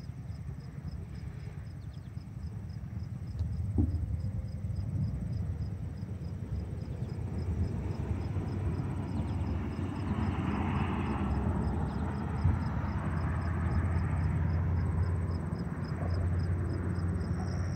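Insects chirping in an even rhythm of about two chirps a second, with a steady high insect trill, over a louder low rumble that swells from about four seconds in.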